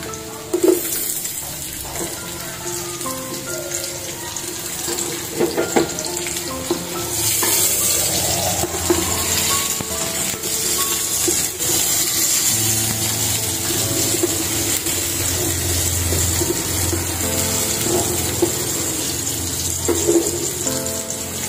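Sliced ginger, red onion and garlic sizzling in oil in a stainless steel pot, with a wooden spatula now and then knocking and scraping against the pot. Background music plays throughout.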